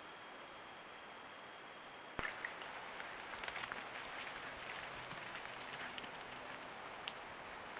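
Outdoor ambience picked up by a trail camera's microphone: a steady faint hiss. About two seconds in, a new clip starts with slightly louder hiss and many scattered light ticks and crackles, busiest in the middle.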